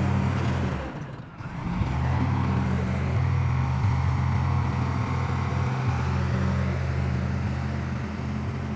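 Heavy diesel engine of earthmoving machinery (bulldozer or dump truck) running steadily under a low, even drone, briefly dropping away about a second in before coming back.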